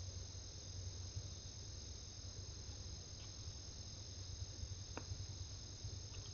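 Night insect chorus of crickets: a steady, unbroken high trilling, over a low steady hum, with one faint click about five seconds in.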